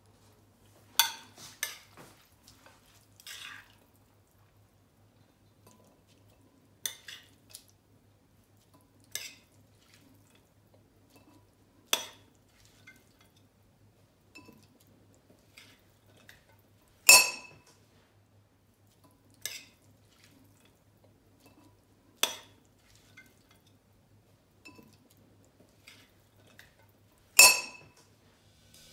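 Metal spoon clinking against ceramic bowls while salad is spooned from one bowl into another: sharp clinks every few seconds, the loudest about halfway through and near the end.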